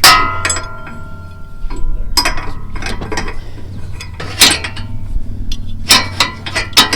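Metal parts of a lawn tractor's mower deck clanking and clinking as they are handled. The first strike rings on briefly, and several more separate knocks follow.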